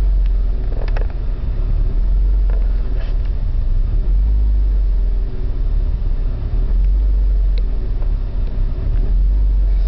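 BMW E36 engine idling roughly: a steady low rumble whose level wavers and dips irregularly. The rough idle was caused by a faulty oxygen sensor.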